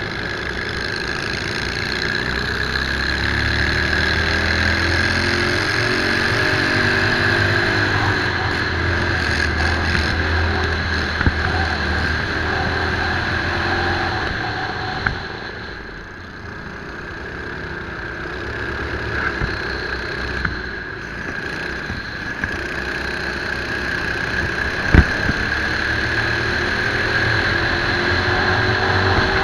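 Racing kart's engine heard from onboard at full race pace: its pitch climbs as it accelerates along the straights, falls away as it slows around the middle, then climbs again. A single sharp knock about three-quarters of the way through.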